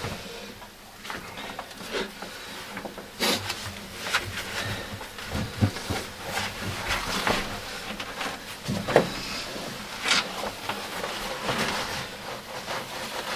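People moving about in close quarters: irregular rustling with scattered clicks and knocks.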